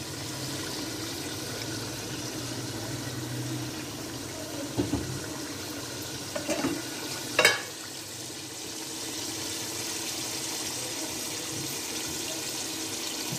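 Beef and masala sizzling steadily in an aluminium pot as they are browned, with a few knocks of a wooden spoon against the pot, the loudest about seven seconds in.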